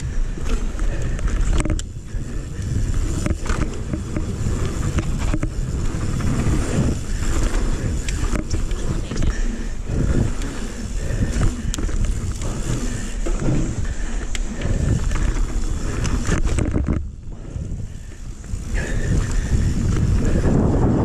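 Mountain bike riding fast down a dirt forest trail: wind buffeting the microphone, tyre noise on the dirt, and frequent knocks and rattles from the bike over bumps and roots, with a quieter spell a few seconds before the end.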